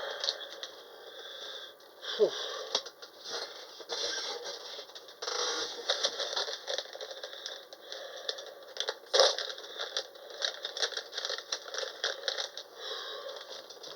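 Handling noise from unboxing: rustling and scraping, with many small clicks and rattles as packaging is opened and pieces of rock are handled.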